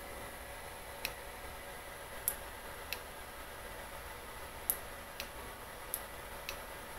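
Seven small, sharp clicks at irregular intervals over a steady hiss and faint hum.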